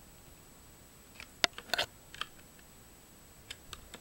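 Scattered sharp clicks and ticks of a screwdriver and small screws working against an Asus Eee PC netbook's plastic case, most of them bunched between about one and a half and two seconds in, with two more near the end.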